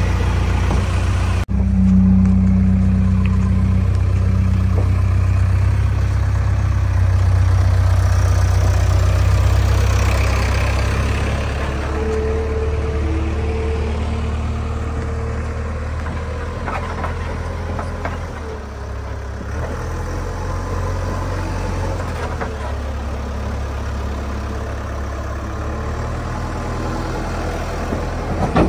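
JCB 3DX backhoe loader's diesel engine running steadily while the machine works its bucket of soil, louder in the first half and easing off about halfway through.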